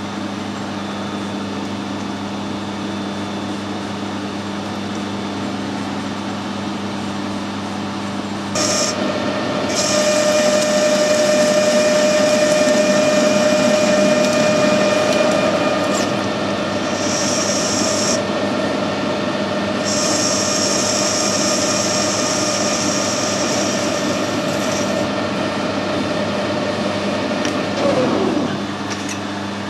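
A machine tool hums at steady running speed. About nine seconds in it starts cutting steel, a loud rasping, hissing cut with a steady whine, and the hiss breaks off and returns a few times. Near the end the cut stops and the machine winds down with a falling whine.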